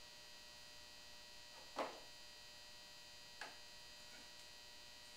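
Faint steady electrical hum, broken by two short clicks about two and three and a half seconds in as a screwdriver works the screw of a rifle's butt plate.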